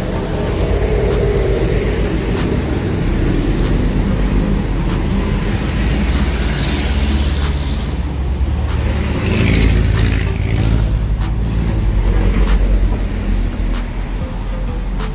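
Mazda MX-5 RF's power-retractable hardtop opening, its motors whirring in two stretches as the rear buttress lifts and the roof panels fold away. Under it is a steady low rumble of a running car, with faint regular clicks about once a second.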